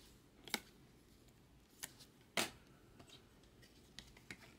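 Trading cards and plastic card sleeves being handled: a few short snaps and rustles, the loudest about two and a half seconds in, with faint ticks near the end.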